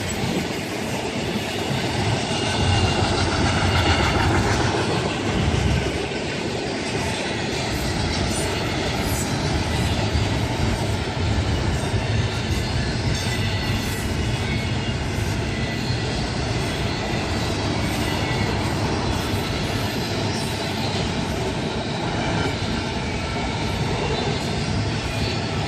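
Train cars rolling past on the rails: a steady rumble of wheels on track with some wheel squeal, loudest a few seconds in.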